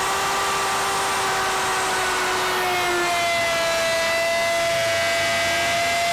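Sears Craftsman handheld router running at full speed with a steady high whine as its bit cuts a slot into the wooden surfboard for a fin box.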